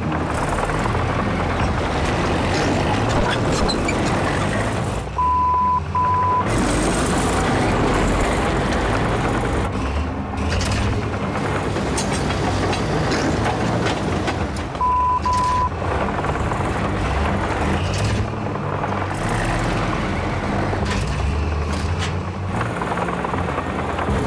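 Heavy diesel engine of a 53-ton Komatsu bulldozer running hard under load. Twice, about five seconds in and again about fifteen seconds in, a pair of short, steady high beeps cuts in over it.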